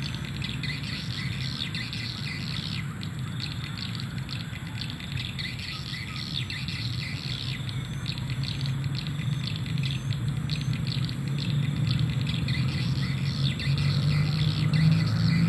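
Swiftlets chirping and twittering, many short high chirps repeating without a break, over a trill of insects. A low rumble grows louder near the end.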